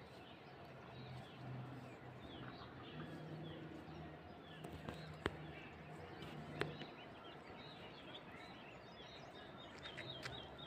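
Faint outdoor ambience of many small birds chirping and calling, over a low steady hum, with two short sharp clicks about halfway through.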